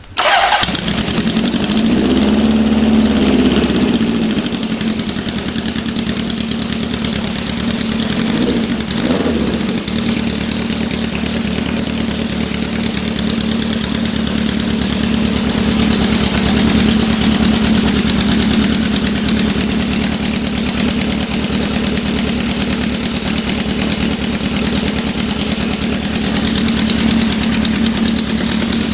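Honda CB750 air-cooled inline-four motorcycle engine running through custom-built exhaust pipes, just started cold after sitting parked since last year. The revs swell briefly a couple of seconds in and blip once more around nine seconds in, then it settles into a steady idle.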